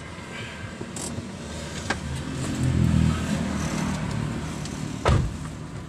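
Car engine running as the car creeps forward slowly, growing louder for a second or so around the middle. A single sharp loud thump near the end.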